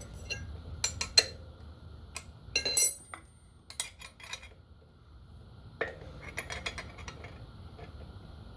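Metal parts and hand tools clinking and clattering in several short clusters, the loudest a little under three seconds in.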